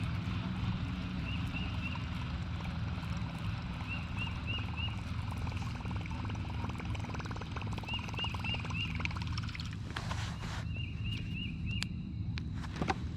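A bird calling in short series of three or four quick chirps, four times, over a steady low hum. A few sharp clicks come near the end.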